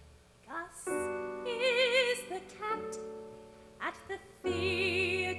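Woman singing a slow musical-theatre song over instrumental accompaniment, starting about half a second in, with wide vibrato on her long held notes.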